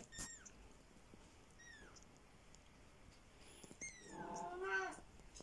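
An 11-day-old kitten mewing: a few thin, high squeaks that each fall in pitch, then a longer, lower cry about four seconds in.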